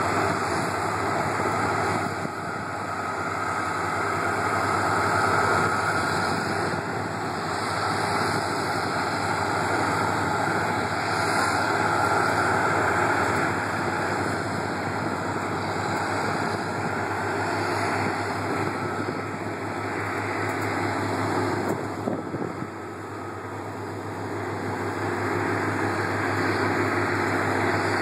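Steady engine and gravel-road tyre noise from a slow-moving vehicle, with a low hum throughout. The level dips briefly late on.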